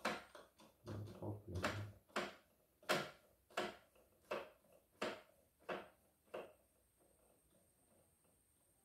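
Mechanism of an opened computerized embroidery machine being worked by hand, giving a regular series of sharp clicks, about three every two seconds, that stop after about six and a half seconds.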